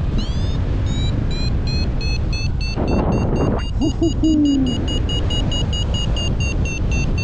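Paragliding variometer beeping about three times a second, the first few beeps sweeping upward before settling on one steady high tone: the climb signal that the glider is in rising air. Wind noise rushes on the microphone underneath.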